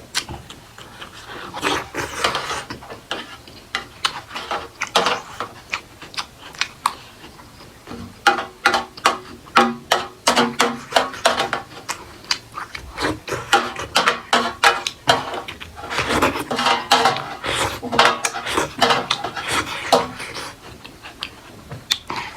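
Close-miked chewing and lip-smacking of food in an eating show: dense, irregular moist clicks and crackles, coming in clusters with short pauses, and a few brief mouth noises mixed in.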